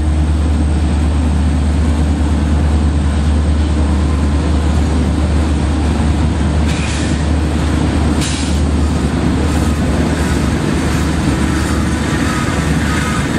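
Freight train cars, covered hoppers and gondolas, rolling past: a steady deep rumble of wheels on rail, with two brief higher-pitched noises a little past halfway.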